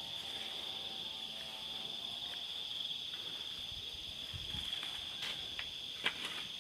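Steady, high-pitched insect chorus, with a few faint clicks near the end.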